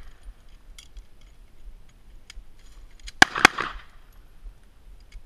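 Two handgun shots fired in quick succession, about a quarter second apart, roughly three seconds in, each with a short echo. A few faint clicks come before them.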